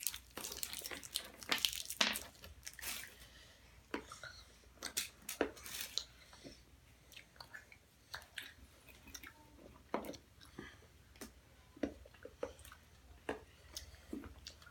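A young child chewing candy: faint, irregular small clicks and crunches.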